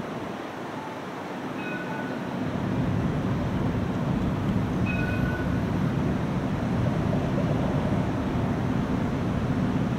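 CAF Urbos low-floor streetcar approaching. Its low rumble grows louder about two and a half seconds in and then holds steady.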